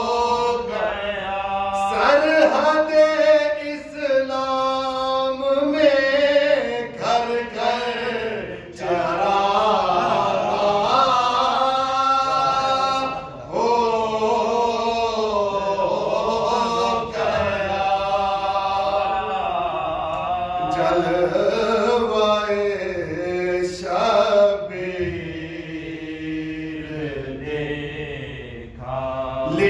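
Unaccompanied male voices chanting a slow Shia devotional recitation in Urdu: a lead voice at the microphone with two men singing supporting lines alongside. The lines are long and wavering, with brief pauses for breath.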